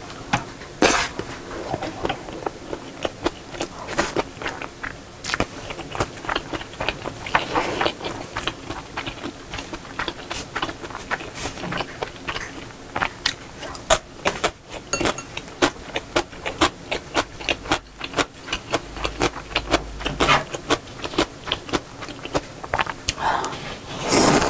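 Close-miked eating sounds: a person chewing mouthfuls of shrimp fried rice, with many quick, irregular mouth clicks. Near the end, a louder slurp of jjamppong noodles.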